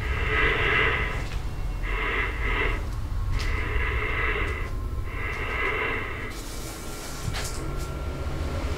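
Ghost-hunting spirit box sweeping through radio frequencies: choppy bursts of radio static from its small speaker, each about a second long with short gaps, stopping about six seconds in. A low steady rumble runs underneath.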